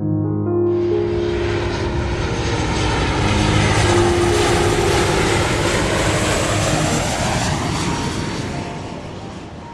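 Propeller aircraft engine droning as it passes by. It comes in suddenly, is loudest mid-way, and fades near the end.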